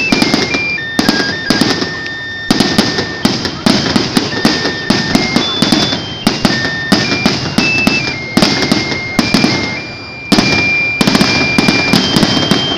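Aerial firework shells bursting in quick succession: a dense run of loud bangs and crackle, easing briefly about ten seconds in before a fresh loud burst.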